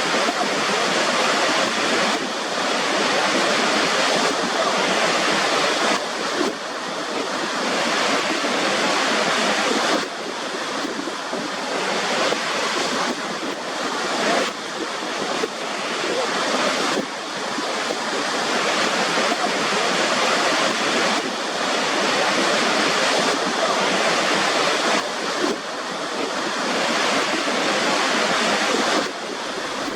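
Steady rush of flowing or crashing water, a dense hiss with little bass. Its level and texture change abruptly every few seconds, as at cuts between recordings.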